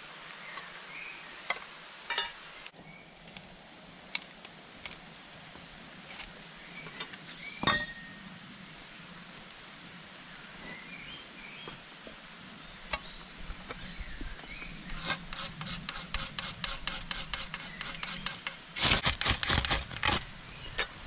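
A metal tin and its lid clink and tap as they are handled. Then comes a run of quick rasping scrapes, a few a second, which grows louder and denser near the end as the tinder fungus (Fomes fomentarius) is being lit.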